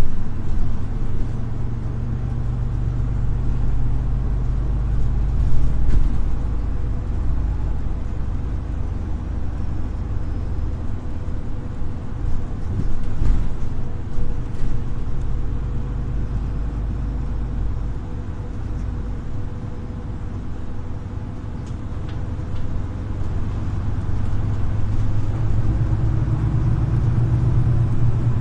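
Cabin noise inside a moving Solaris Urbino 18 IV articulated city bus: its Euro 6 diesel engine runs with a steady low drone and a faint steady whine, with a few short knocks and rattles. The engine gets louder over the last few seconds.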